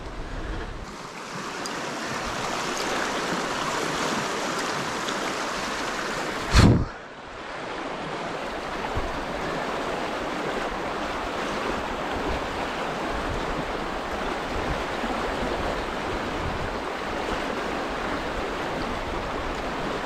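Shallow river riffle running over rocks: a steady rush of flowing water. A single loud thump about six and a half seconds in.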